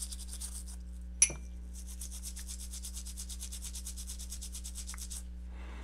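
Fast, rhythmic brush scrubbing on a small perfboard circuit board wet with non-acetone nail polish remover, to clean off solder flux. It pauses briefly with a single sharp tick about a second in, then runs on and stops near the end.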